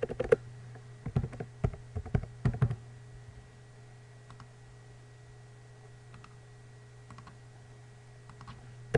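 Typing on a computer keyboard: a quick run of keystrokes over the first three seconds, then a few faint scattered clicks and one sharper click near the end. A steady low hum runs underneath.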